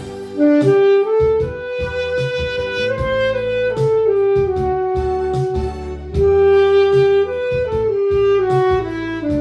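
Saxophone playing a slow, sustained song melody over a backing track with bass and a steady beat.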